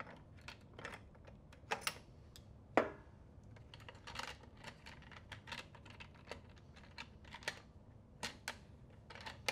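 Scattered light clicks and clacks of plastic and metal parts as a Paslode Impulse CoilMaster IM50S gas coil nailer is handled and its fuel cell is pulled out to make the tool safe. The clicks come irregularly, with a sharper one about three seconds in.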